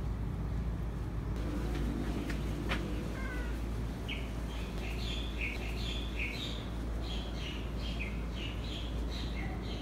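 Domestic cat giving a quick run of short, high-pitched chirping mews, starting about four seconds in, over a steady low hum.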